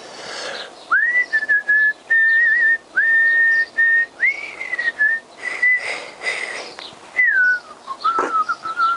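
A man whistling a slow tune in a string of held notes that mostly sit at one pitch, each sliding up into place, dropping lower near the end.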